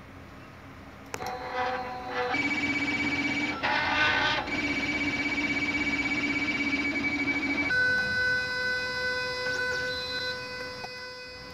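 A run of steady electronic tones that hold a pitch for a second or two and then jump to new pitches, getting louder about a second in and fading gently near the end.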